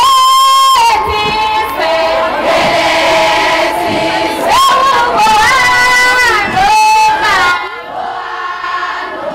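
A crowd of voices singing, with high-pitched held notes that swoop up and hold several times over the group. It grows quieter near the end.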